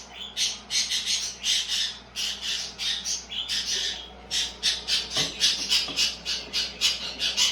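Pet birds squawking: a fast run of short, harsh calls, several a second, without a break.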